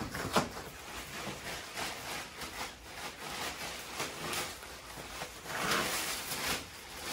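Blue plastic tarp rustling and scraping over a dirt floor as it is pushed on a stick against a mule's legs, louder for a moment near the end.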